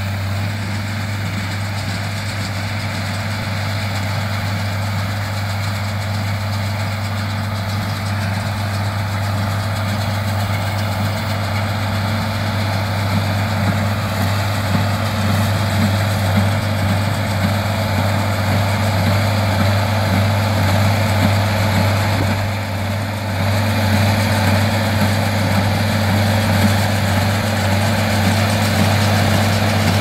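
Farmall 656 tractor engine running steadily while pulling a small square baler through a windrow of hay. It grows gradually louder as the tractor comes closer, with a brief dip about 22 seconds in.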